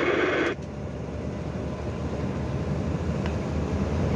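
Semi-trailer truck's engine and road noise heard from inside the cab while driving at speed: a steady low rumble that slowly grows louder. A burst of hiss from the CB radio cuts off about half a second in.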